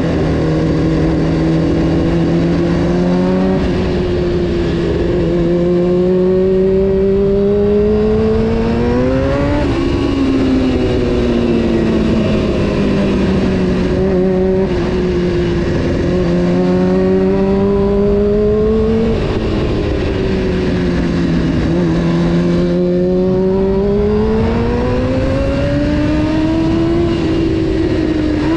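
Honda CBR600 F4 motorcycle's inline-four engine under way, its pitch climbing as it revs up and sinking back several times, with a sudden drop in pitch about two-thirds of the way through, as at an upshift.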